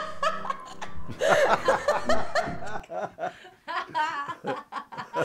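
People laughing and chuckling in quick short bursts, over a low steady musical drone that stops a little past halfway.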